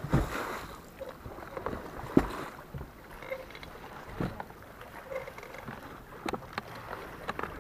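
Water lapping against a small fishing boat's hull, broken by a few short sharp knocks and clicks, about half a dozen spread through.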